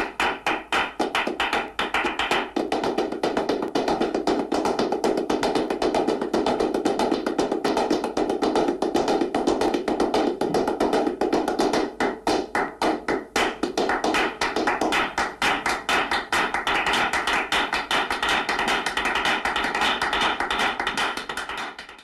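Rapid, dense percussive clapping like hands or wooden clappers, a continuous clattering rattle with a brief thinner stretch about halfway through. It cuts off abruptly at the end.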